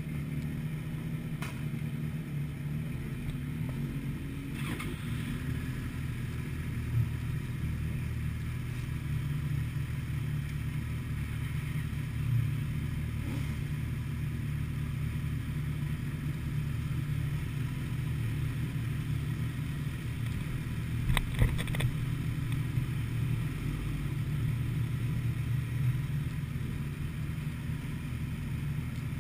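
Sport motorcycle engines idling steadily, with a few brief clicks about two-thirds of the way through.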